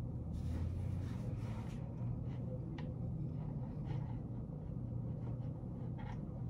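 Quiet office room tone with a steady low hum, and faint scratching of a pen writing on paper in the first couple of seconds.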